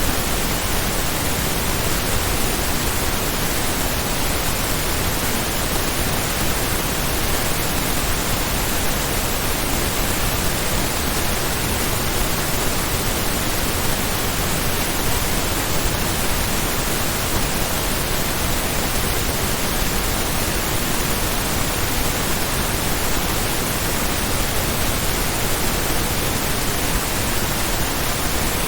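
Pink noise test signal, true stereo at −14 LUFS: a steady, even hiss that does not change.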